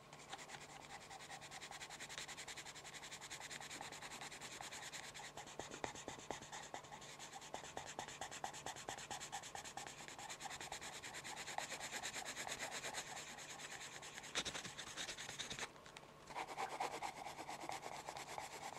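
Pencil lead rubbing rapidly back and forth on paper, as in shading, as a continuous fine scratching. There is a single sharp tap about three quarters of the way through and a brief pause soon after.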